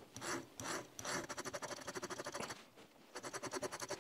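Hand-filing metal off the dovetail of a new steel night sight to fit it to the slide: two separate rasping strokes, then a quick run of short strokes, a brief pause, and another quick run near the end.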